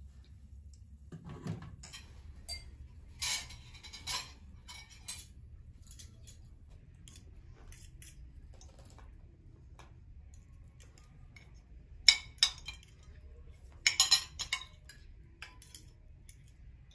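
Forks and spoons clinking and scraping on china plates and serving bowls as people eat. Scattered light clinks, with a few sharper ones about twelve and fourteen seconds in.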